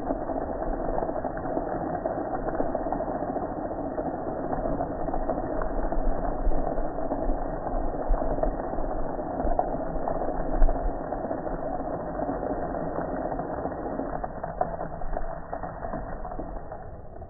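Water running steadily over a soap-covered gas grill and splashing onto the concrete, as a constant rush.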